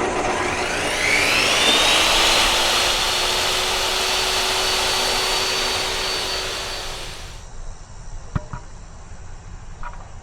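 An electric motor spinning up with a rising whine over a loud rushing of air, then running steadily before shutting off about seven seconds in. Two short knocks follow near the end.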